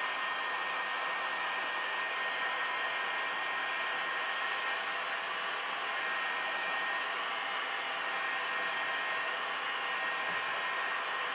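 Heat gun blowing hot air steadily: an even rush of air with a faint constant whine from its fan motor, drying a freshly applied coat of colour resin on a leather steering wheel.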